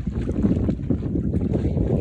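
Wind buffeting the microphone on the deck of a sailboat under sail: a steady, fluttering low rumble.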